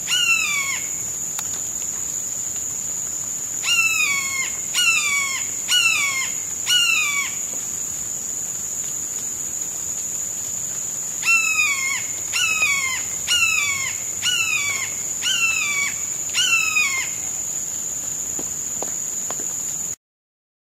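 A hawk calling: loud, down-slurred screams about one a second, one near the start, a run of four, then after a pause a run of six. Under them runs a steady high-pitched insect drone; the sound cuts off suddenly near the end.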